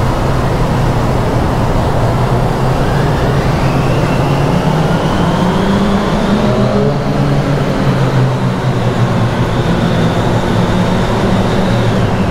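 Motorcycle engines running steadily as the bikes ride through a rock road tunnel. A high whine climbs in pitch over the first half, holds level later on and cuts off shortly before the end.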